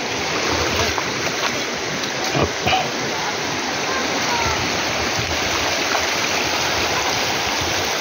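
Shallow river rushing over flat rock slabs and small rapids at a waterfall, a steady rush of water.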